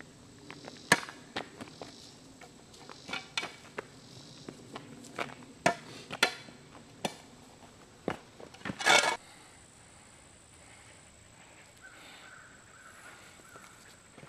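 Shovel striking and scraping on the ground: a string of sharp, irregular knocks, with a brief longer scrape about nine seconds in, then only faint background.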